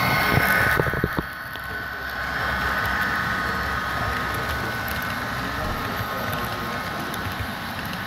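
Model railway autorack cars rolling past on the layout's track: a steady rolling rumble of wheels on rail, with a few sharp clicks about a second in.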